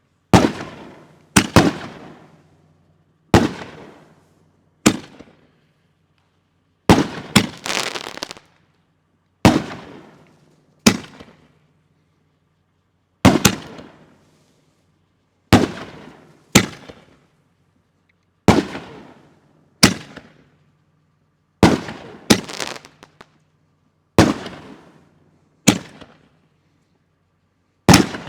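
Neon Skies 5-inch canister firework shells going off in a fused sequence: a string of about twenty loud bangs from shells lifting out of their mortar tubes and breaking overhead, roughly one every second or so, each trailing off in a long echo.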